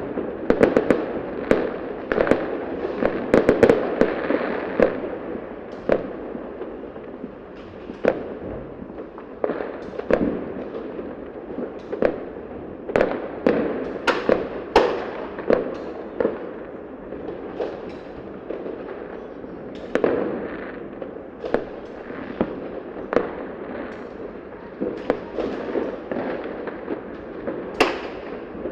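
Fireworks going off: a string of sharp bangs and pops at irregular intervals over continuous crackling, densest in the first few seconds and again near the middle and near the end.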